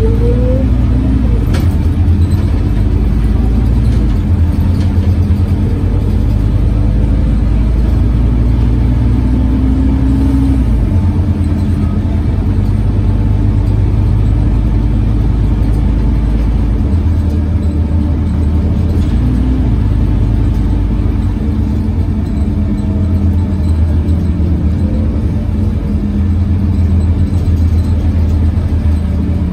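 Inside a Scania OmniCity CN230UB city bus on the move: a loud, steady drone of the running bus, dominated by its engine cooling fan, which drowns out the engine itself. The deep part of the drone eases off about 11 seconds in and comes back about 17 seconds in.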